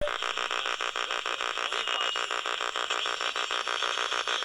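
Pulsed interference from an AM/FM radio's speaker: a rapid, evenly repeating buzz over static, several pulses a second. The owner takes it for microwave signals being directed at her.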